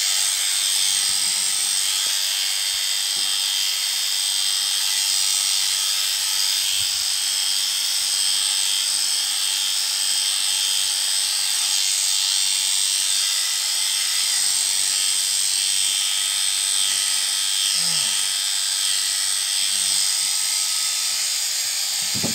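Electric sheep shears running steadily as they cut through a ram lamb's fleece: a high, even buzz.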